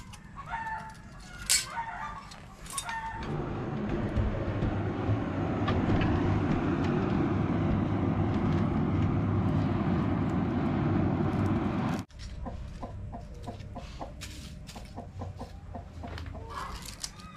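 Tin snips clicking as they cut strips of steel tape measure, with chickens clucking; then, from about three seconds in, a coal forge fire under an air blast, a steady rushing noise and the loudest part, which cuts off suddenly about twelve seconds in. After it come light ticks and clinks of metal pieces and more clucking.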